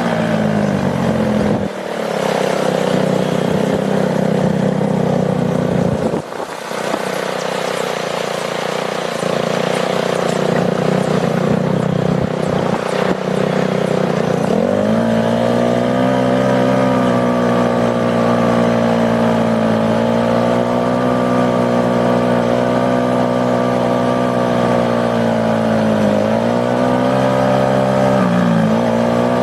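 ATV engine running under way, with the engine note climbing about halfway through, then easing off and picking up again twice near the end as the throttle changes.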